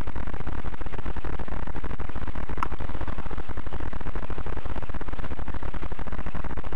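Steady electrical buzz on a helmet camera's microphone, a fault of the recording, with a brief high chirp about two and a half seconds in.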